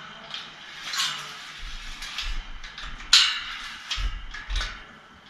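Metal clinks and rattles of a wrench and sprocket against a bicycle rear hub as it is adjusted by hand, with sharper clicks about one second and three seconds in.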